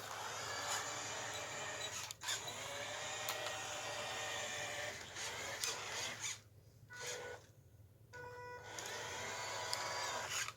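Small DC gear motors of a 3D-printed Arduino RC car whining as it drives and turns on carpet, the pitch rising and falling with speed. About two-thirds of the way through the motors drop back to a faint steady whine for a couple of seconds, then pick up again.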